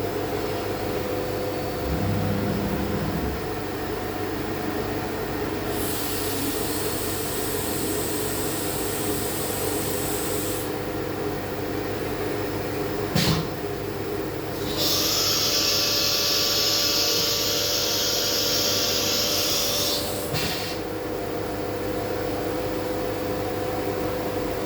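CNC machine running with a steady hum, broken by two spells of high hiss that switch on and off abruptly, the second one louder, and a single sharp click between them.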